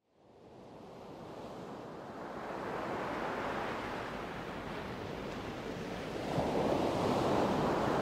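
Sea waves washing onto a shore, fading in over the first couple of seconds, with a louder wave breaking about six seconds in.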